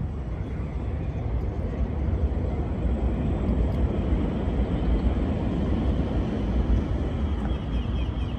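Low, steady rumble that swells a little through the middle and eases near the end.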